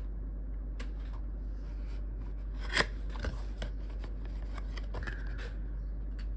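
Watch packaging being handled and opened by hand: scattered sharp clicks and light rustles, the sharpest about three seconds in, over a steady low hum.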